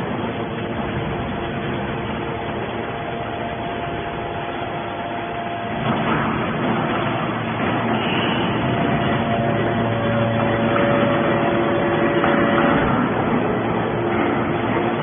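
Hydraulic scrap metal baler running: steady machine noise with a few held whining tones, growing louder suddenly about six seconds in.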